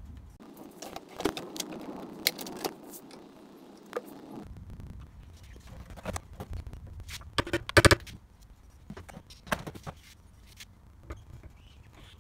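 Metal parts clinking and knocking as a key is pushed along a small engine's output shaft and a centrifugal clutch is fitted onto it. A scraping rustle runs through the first few seconds, and a quick cluster of ringing metallic taps comes a little before eight seconds in, the loudest sound here.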